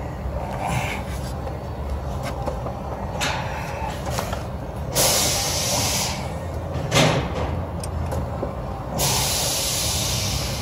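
Hand work deep in a car's engine bay while threading a starter's mounting stud: rustling and scraping as the arm rubs against hoses and covers, with a few light clicks, over a steady low hum.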